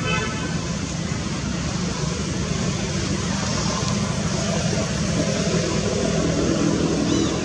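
Steady low rumbling background noise, with a short high-pitched call right at the start and a brief chirp near the end.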